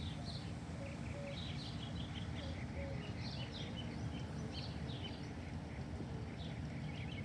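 Small birds chirping in quick, repeated short notes over a steady low background rumble.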